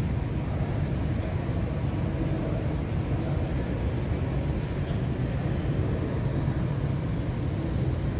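Steady low droning room noise from air conditioning and wall-mounted fans running in a large hall.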